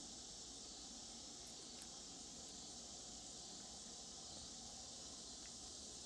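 A steady, high-pitched chorus of annual cicadas droning without a break.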